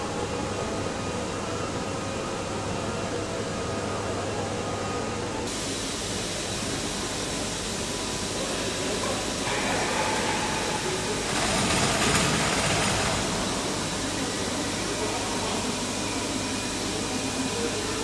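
Factory-hall ambience in an aircraft assembly plant: a steady hum and hiss of machinery and ventilation with distant activity. A louder rushing noise swells for about two seconds in the middle.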